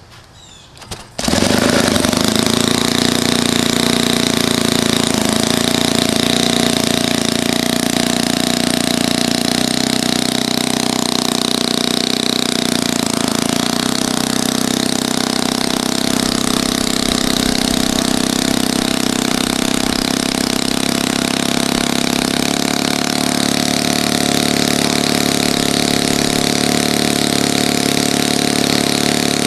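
Conley 120 DOHC four-stroke model glow engine turning a wooden propeller: it catches suddenly about a second in and then runs steadily, its timing off, which the owner describes as mis-timed.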